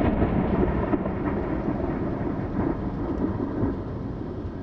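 Thunder rumbling with the hiss of rain, fading slowly.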